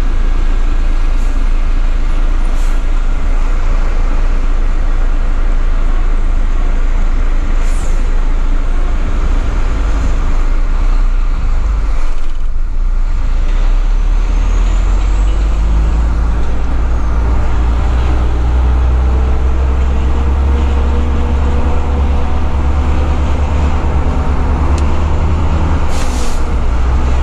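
Volvo FH12 480's straight-six diesel engine and road noise, heard inside the cab at crawling speed. About halfway through the engine note drops out briefly, then slowly rises as the truck pulls again, with a few short, sharp clicks along the way.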